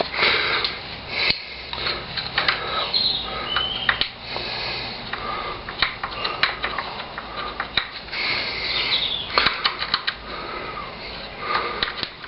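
Irregular clicks, clinks and knocks of hands working with tools and metal parts around a motorcycle's front wheel, brake caliper and ABS sensor, over a low steady hum.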